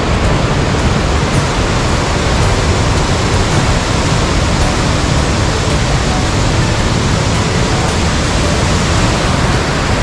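Waterfall, the falling water making a loud, steady rush.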